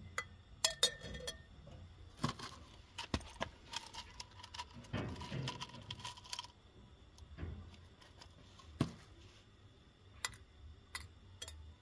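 Irregular sharp clicks and light clinks, a dozen or so spread across the stretch, over a faint hiss that is a little louder in the middle.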